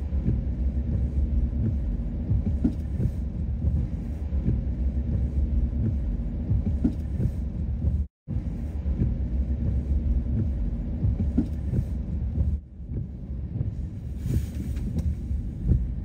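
Steady low rumble of a car driving, heard inside the cabin, with many small knocks and bumps along the way. The sound cuts out completely for a moment about halfway through.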